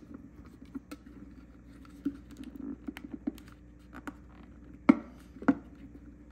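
A screwdriver backing out the small Phillips screws on the plastic locking-mechanism cover of a KitchenAid food processor bowl: scattered light clicks and scratches, with two sharper plastic knocks about five seconds in.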